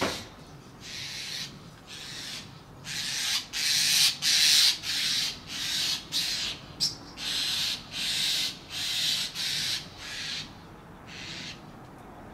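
Birds calling noisily: a long series of short, harsh, scratchy calls, about two a second, loudest in the middle and stopping near the end.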